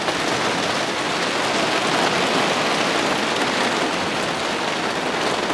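Heavy thunderstorm downpour: a steady, even hiss of rain pouring down, with no change in strength.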